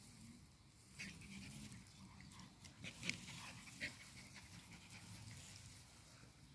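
Pinscher biting and chewing clover flower heads: faint rustling of stems and leaves with a few sharp snaps and crunches, the loudest about three seconds in.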